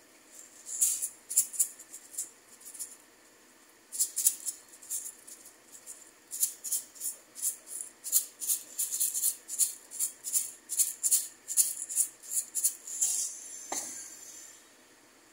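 A McCormick salt shaker shaken by hand, the salt grains rattling inside in quick strokes about three a second, with a short pause about three seconds in. A single knock near the end.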